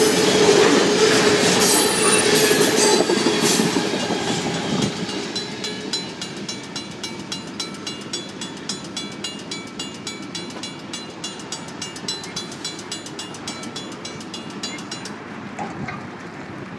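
Freight train hopper cars rolling past on the rails, fading after about five seconds as the train clears. A Safetran mechanical crossing bell then rings on in fast, regular strikes and stops shortly before the end; it sounds rough and ticking, which is taken as the bell starting to die.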